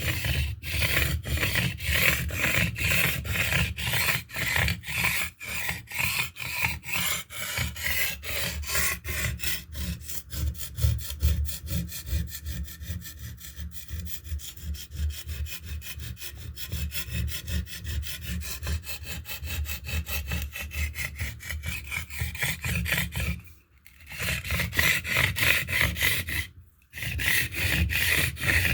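Steel knife blade being rubbed back and forth on a limestone sharpening stone in rapid, even strokes, a gritty rasping scrape. The strokes come faster in the middle and stop twice briefly near the end.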